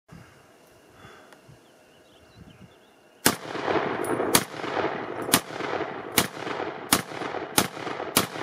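M1 Garand semi-automatic rifle in .30-06 fired in rapid succession: seven shots starting about three seconds in, roughly one a second, each trailing off in an echo. The rifle fires and cycles each round without a hitch.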